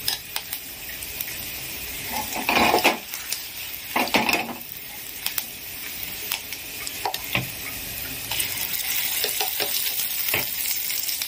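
A tempering of mustard seeds, cumin, curry leaves and dried red chillies sizzling in hot oil in a kadai, with scattered crackles and a couple of louder scrapes against the pan. Near the end the sizzle grows louder as the ground ridge gourd chutney goes into the hot oil.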